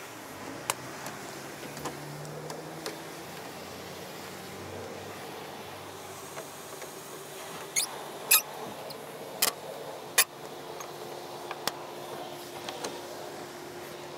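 Sharp clicks and taps of a hand screwdriver and hose clamps as corrugated vacuum hoses are fitted and clamped onto a car wash vacuum dualer. They are scattered and irregular, with the loudest cluster about eight to ten seconds in, over a steady faint hum.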